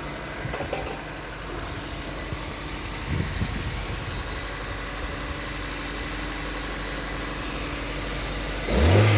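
Toyota Corolla engine idling steadily, running on a replacement ECU that cured its crank-no-start fault; near the end it is revved, the pitch rising.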